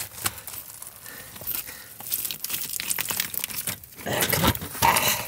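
Footsteps crunching and scuffing over loose broken rock and gravel on a mine floor: irregular crunches and clicks, growing denser and louder about four seconds in.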